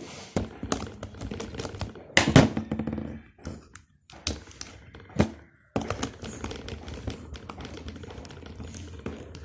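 Clicks, taps and knocks of hands working on a plastic contactor: a jumper wire pushed into its terminals and a screwdriver tightening a terminal screw. The loudest knocks come about two seconds in.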